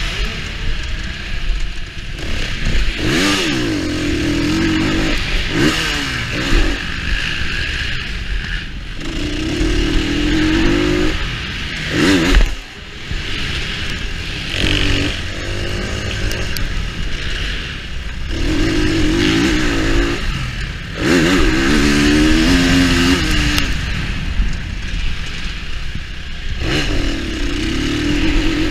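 KTM 350 EXC-F's single-cylinder four-stroke engine revving up and falling back over and over as the bike is ridden hard round a dirt track, rising and falling in pitch. A few sharp knocks and clatter cut in, the loudest about twelve seconds in.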